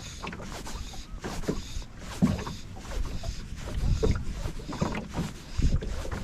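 Small boat drifting on a choppy lake: water lapping and slapping against the hull under a steady low wind rumble, with irregular knocks and a couple of louder low thumps about two seconds in and near the end.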